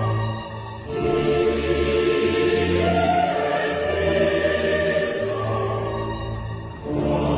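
Background music: a choir singing long, held notes in a classical, operatic style.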